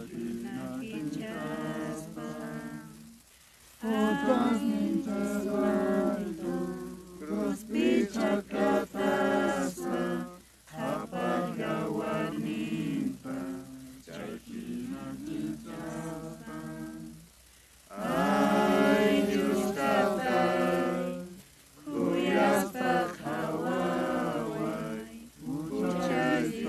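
Voices singing a religious hymn in long phrases, broken by short pauses every few seconds.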